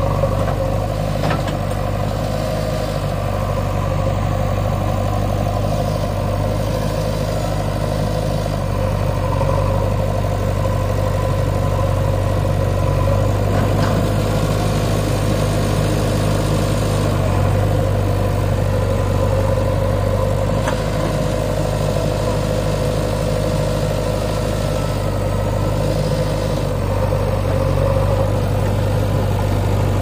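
JCB 3DX backhoe loader's diesel engine running steadily at an even, low speed, with a few faint clicks.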